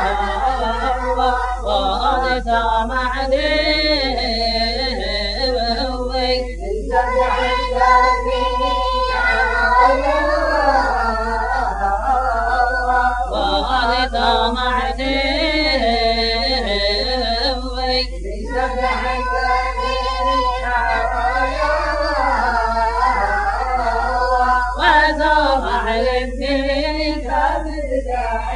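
Yemenite Jewish shira singing in the Sana'a tradition: a man's voice singing in long, wavering, ornamented phrases, pausing briefly for breath a few times.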